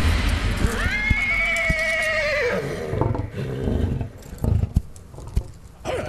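A horse neighing: one long whinny of about two seconds, starting just under a second in, followed by a few sharp knocks in the quieter second half.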